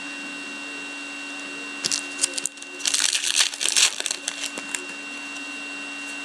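Foil trading-card pack torn open and crinkled by hand, in two bursts of crackling about two and three seconds in. A steady electrical hum runs under it.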